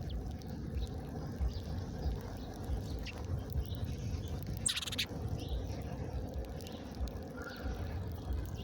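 Small birds giving short, scattered chirps, the loudest one about five seconds in, over a steady low rumble.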